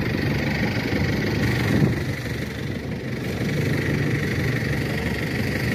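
Fishing boat's engine idling steadily with an even low rumble.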